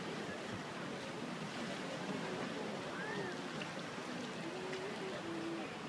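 Steady rushing sea-water noise, with a faint short whistle that rises and falls about three seconds in.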